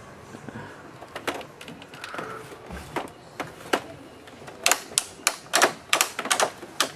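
Plastic Lightning McQueen ride-on toy car clattering: a run of sharp, irregular clicks and clacks, sparse at first and coming thick and fast in the second half.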